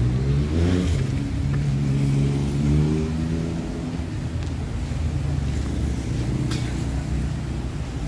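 A passing road vehicle's engine speeds up in the first second, runs loudest for the next couple of seconds and then fades away, over a steady low traffic rumble.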